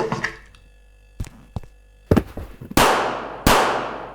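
Sound effects of a violent attack: a short cry or grunt, two light knocks, then three heavy hits about two-thirds of a second apart, each with a long echoing tail that dies away.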